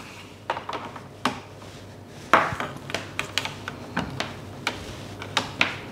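Metal detector coil cable being wound around the detector's shaft by hand: irregular light clicks, taps and rubbing as the cable knocks and slides against the shaft.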